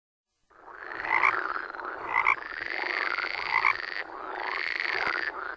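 Frogs croaking, starting about half a second in, with a call that rises and falls and repeats about once a second.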